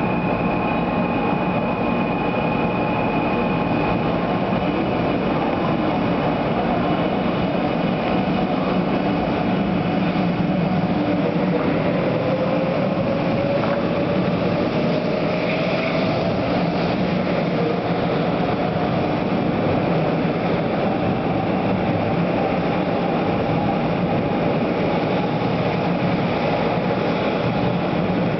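A 500 series Shinkansen train pulling out and accelerating past along the platform: a steady rumble of wheels and running gear. About a third of the way in, a whine begins to rise in pitch as the train gathers speed.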